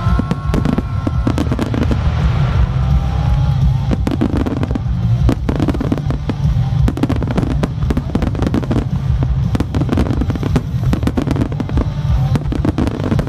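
Rapid, dense barrage of aerial firework shells bursting, many sharp reports close together over a continuous low rumble of booms, with music playing along, its held tones clearest in the first few seconds.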